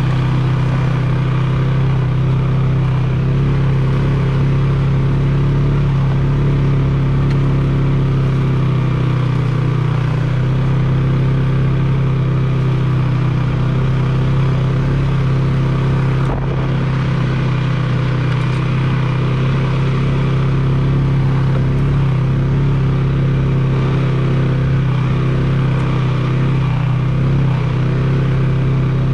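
Polaris ATV engine running at a steady cruising speed as the quad rides a dirt trail, a constant low drone that dips briefly just past halfway.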